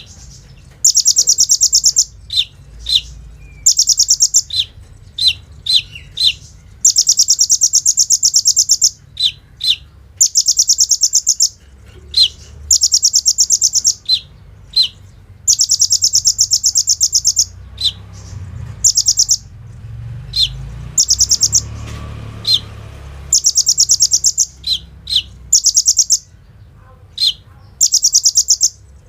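Kolibri ninja sunbird singing a 'gacor' full song: repeated bursts of very fast, high, machine-gun-like trills, some over a second long, alternating with short sharp downslurred notes.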